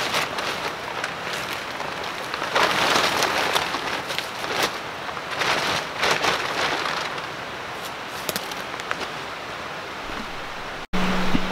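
A large plastic tarp crinkling and rustling as it is unfolded and hung up by hand, with louder surges about two and a half and five and a half seconds in. Near the end, after a brief dropout, a steady low hum begins.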